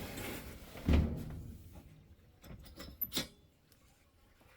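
Pet carrier being handled: a dull thump about a second in, then a few light clicks and taps a couple of seconds later.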